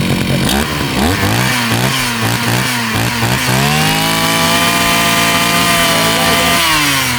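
Husqvarna 541RS brushcutter's two-stroke engine blipped rapidly about six times from idle. It then revs up and is held at high speed for about three seconds before dropping back toward idle near the end.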